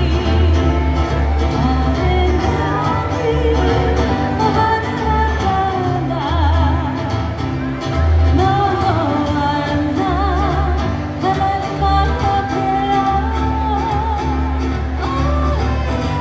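Live Hawaiian band music: a singer holding wavering, vibrato notes over strummed guitars and a steady, pulsing bass line.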